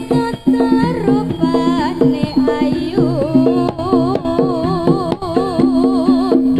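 Javanese campursari ensemble music with an instrumental passage. Hand-drum (kendang) strokes beat over repeating pitched notes, while a wavering melody line with strong vibrato runs on top.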